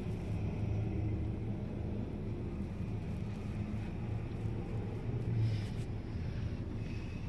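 Steady low rumble of a car on the move, engine and road noise.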